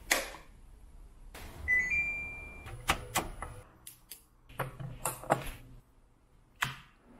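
A wall light switch clicks at the start, then a short electronic beep of two rising tones about two seconds in. A run of sharp plastic clicks and taps follows as a seat-cushion controller's plug and an earbud case are handled, with a last snap near the end.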